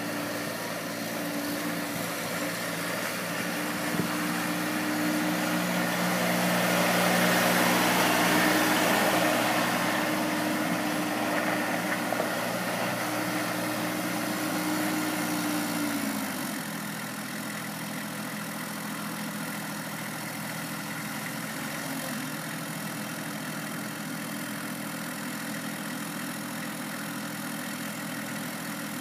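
Massey Ferguson 1526 compact tractor's diesel engine running as the tractor drives around, loudest several seconds in as it passes near. About two-thirds of the way through, the engine speed drops and it settles into a steady lower run.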